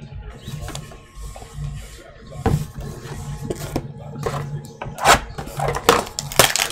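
Hands handling a cardboard trading-card box: scattered knocks and scrapes as it is moved, then a burst of louder rustling and scraping of cardboard and plastic packaging near the end as it is picked up to be opened.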